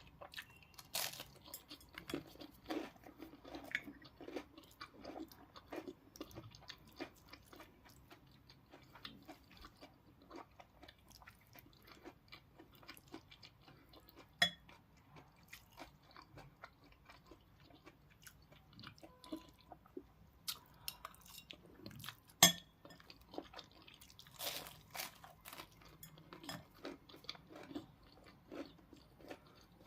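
Close-miked eating: crunchy bites and chewing of fried chicken and pasta, with many small crackles throughout. Two sharper clicks stand out, about a third and three quarters of the way in.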